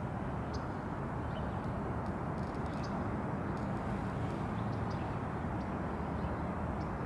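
Steady outdoor background noise with a low rumble, marked by a few faint, short high chirps.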